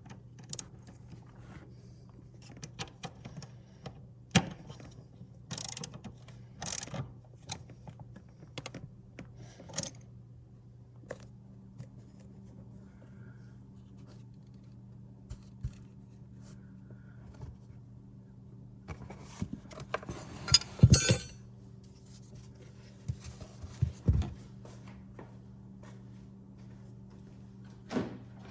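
Scattered clicks and clinks of hand tools and metal parts being handled during the battery and seat work, with a short burst of rattling clatter about two-thirds of the way through, over a steady low hum.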